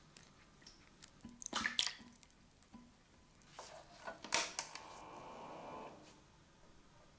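Salt water being stirred with a wooden stick in a glass jar, with swishes and knocks against the glass. This is followed by a few sharp clicks as the bench power supply's leads and controls are handled, then a short steady hum.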